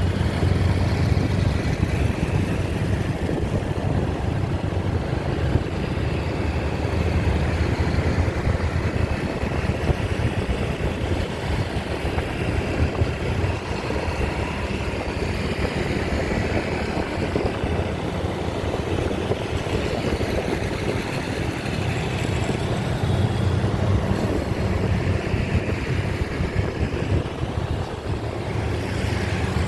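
Vehicle engine running steadily, a continuous low rumble with road noise and no clear rise or fall.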